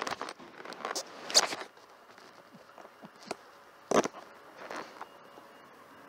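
Irregular knocks and rustling, with two sharp knocks about 1.4 s and 4 s in and a faint steady high tone in the second half.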